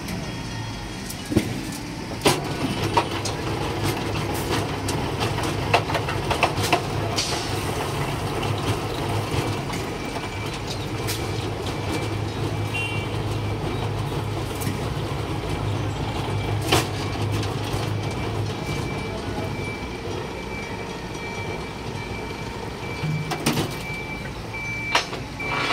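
Electric rebar threading machine running as a steel bar is threaded in its rotating die head: a steady motor hum that fades about three-quarters of the way through, with several sharp metal clanks from the bar and feed lever.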